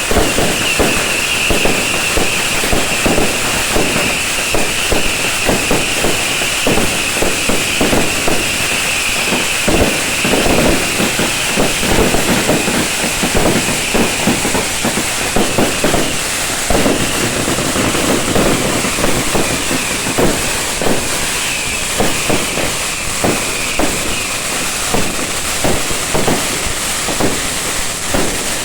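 Beehive fireworks barrage: massed bottle rockets and firecrackers going off in a dense, unbroken stream of pops and cracks over a continuous high hiss.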